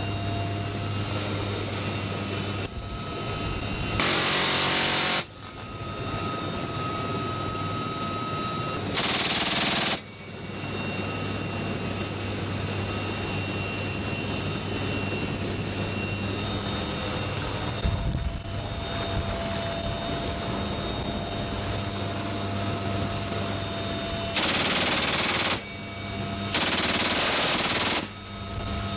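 GAU-18 .50-calibre machine gun (M2) fired from a helicopter's door in four short bursts of about a second each: about four seconds in, about nine seconds in, and twice close together near the end. The helicopter's steady engine and rotor drone runs underneath.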